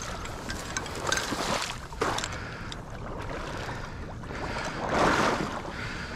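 Legs wading through soupy shallow marsh water, swishing and splashing in surges about a second apart with each stride, loudest about five seconds in.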